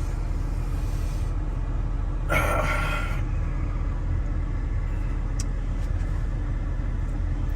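Car's steady low engine rumble heard from inside the cabin, with a brief louder rustling noise about two and a half seconds in.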